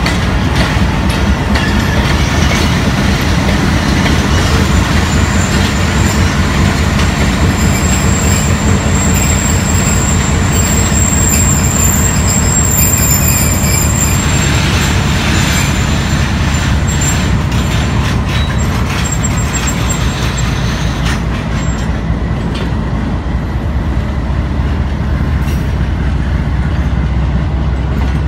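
GE U20 diesel-electric locomotive pulling a passenger train out of the station, its diesel engine running steadily under power with a deep hum, as the coaches roll past on the rails.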